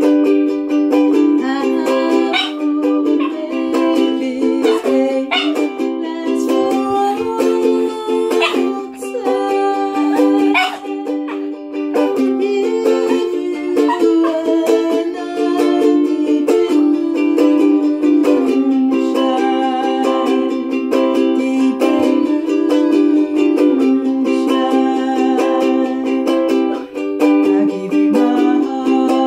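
Ukulele strummed in steady chords with a woman singing, while a Yorkshire Terrier howls along in short rising, bending cries several times during the first ten seconds or so.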